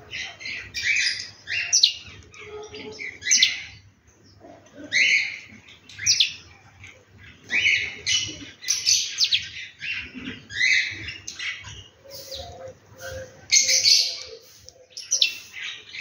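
Small birds chirping in many short, harsh bursts, one after another with brief pauses.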